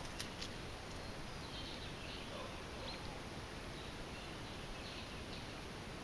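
Quiet outdoor field ambience: a steady hiss with faint short bird calls every second or so, and a few soft clicks in the first half-second.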